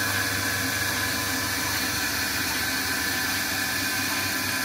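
Milking machine's vacuum pump unit running with a steady hum over an even hiss.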